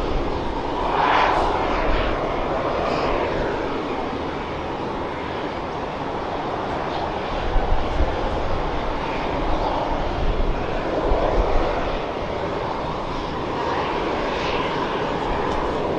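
Jet airliner's turbofan engines running, a steady rushing noise that swells slightly about a second in and again around the middle.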